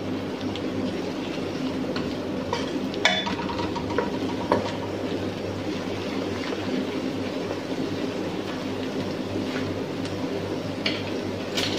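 Chopped onions frying in oil in a steel pot, stirred with a wooden spoon that knocks against the pot a few times, over a steady low mechanical hum.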